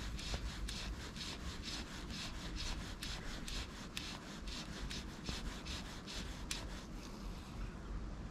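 A 5-weight floating fly line being stripped in by hand, rasping through the rod guides and over the fingers in quick, evenly repeated pulls. The pulls stop about a second before the end.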